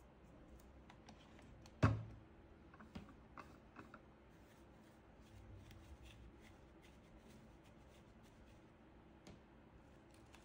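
Faint handling of an electric cigarette rolling machine and its tobacco: one sharp knock about two seconds in, a few lighter clicks just after, then soft rustling and a single click near the end.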